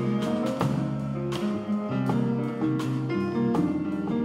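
A small jazz ensemble of strings and double bass playing an instrumental passage, with plucked, sharply attacked notes among the held ones.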